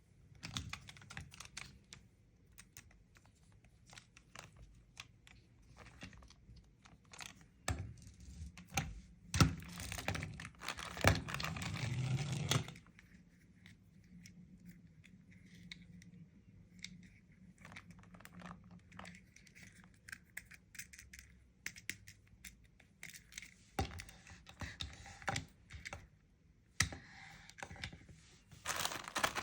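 Toy packaging being handled and opened by hand: scattered taps, clicks and scratches, with a stretch of rustling, tearing noise about nine to twelve seconds in and more rustling near the end.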